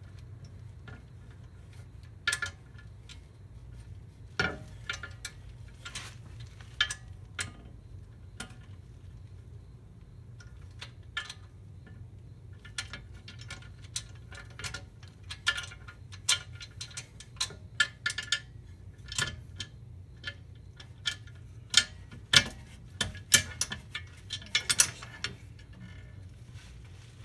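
Irregular metallic clinks and clicks of hand tools and sway bar bracket bolts being handled and fitted, with a cluster of louder knocks near the end, over a steady low hum.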